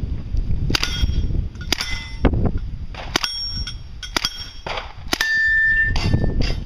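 Steel targets struck by 9mm Uzi fire: a series of sharp clangs about a second apart, each followed by a metallic ring, the last ringing on for about a second.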